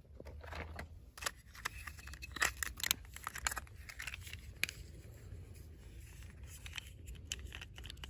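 Toy packaging being handled and opened: rustling and crinkling with small sharp clicks, busiest in the first few seconds and fewer towards the end.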